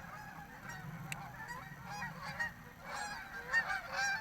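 Many short calls overlapping, like a flock of birds calling, over a low steady hum.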